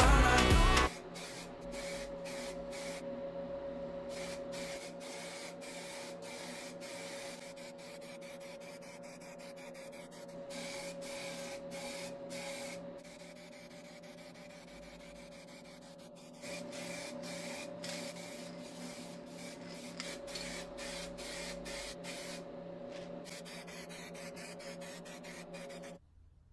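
A small motor-driven workshop tool running steadily with a constant hum and hiss, dotted with many short clicks, which stops abruptly near the end.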